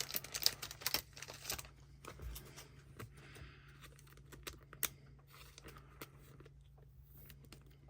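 Faint crinkling and small clicks of trading cards being handled with thin plastic, likely a card going into a soft sleeve: a quick run of clicks in the first second and a half, then sparse, softer rustles.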